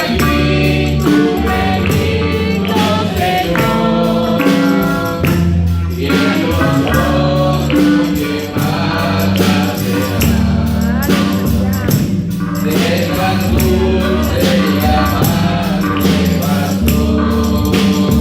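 Men's church choir singing a gospel hymn together over a band, with steady bass notes and a regular percussion beat.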